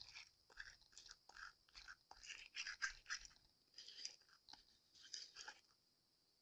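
Faint, irregular scratchy crackling as the two halves of a homemade clear resin grinder loaded with chunky glitter are twisted against each other, stopping about five and a half seconds in. The grinder's teeth are not meeting, so it is not actually grinding the glitter.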